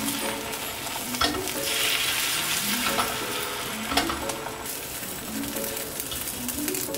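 Beaten egg sizzling in a rectangular nonstick tamagoyaki pan as it is rolled up into a Korean rolled omelette with wooden chopsticks. A few sharp clicks of the chopsticks against the pan, about one, three and four seconds in.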